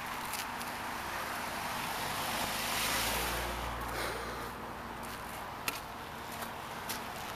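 A car passing on the road. Its engine and tyre noise swells to a peak about three seconds in, then fades away. A few light ticks follow near the end.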